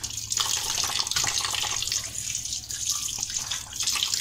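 A thin stream of running water splashing into a steel bowl of raw chicken pieces as they are rinsed by hand; a steady splashing hiss.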